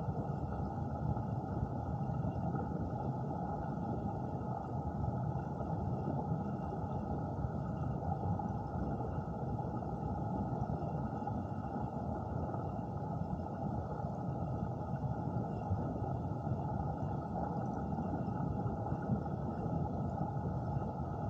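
Steady, muffled rush of water picked up by a camera submerged underwater, with no separate events.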